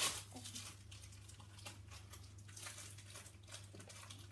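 Faint crinkling and rustling of a plastic toy wrapper being handled and torn open by hand, with one short sharp crackle at the start.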